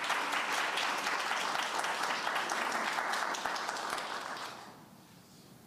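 Audience applauding, a dense patter of many hands clapping that dies away about four and a half seconds in.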